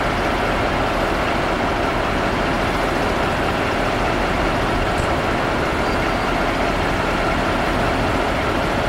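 Class 293 (ex-DR V100) diesel-hydraulic locomotive's engine running steadily at close range.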